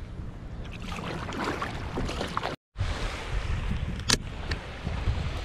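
Wind buffeting the microphone over the splash of a kayak paddle through choppy sea water. After an abrupt cut, a hand handles the camera, with one sharp knock about four seconds in.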